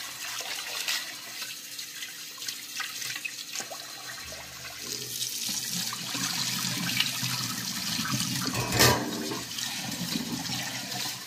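Tap water running into a pot of rice in a stainless steel sink while the rice is washed by hand. About four seconds in, the water gets heavier as the cloudy rinse water is poured off into the sink, and a brief loud thump comes about nine seconds in.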